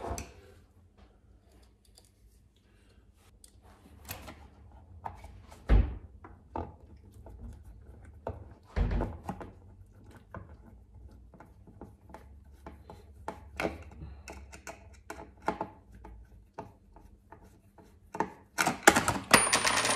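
Hard plastic knocks and clicks as a molded inner fender is handled and pressed against an RC truck's chassis, with two heavier thumps and a dense burst of rapid clicking near the end.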